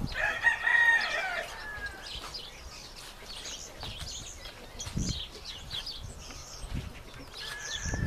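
Rooster crowing once, a single pitched crow of about a second and a half at the start. Faint high chirps of small birds follow.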